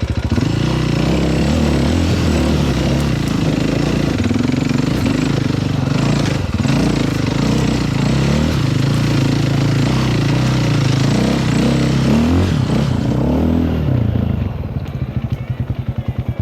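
Off-road enduro motorcycle engine running, its revs rising and falling under load. About two seconds from the end it drops back to a slow, even idle.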